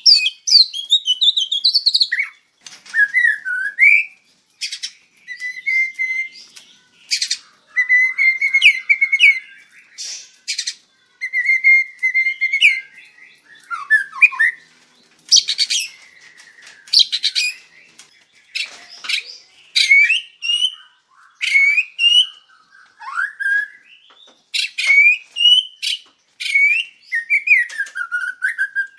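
White-rumped shama (murai batu) singing continuously, phrase after phrase with short pauses. Its song mixes gliding whistles with fast rattling runs of notes.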